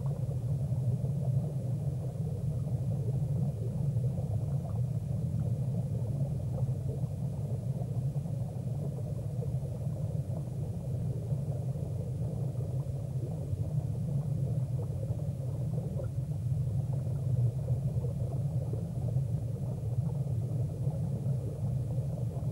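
A steady low rumble with no speech or clear music.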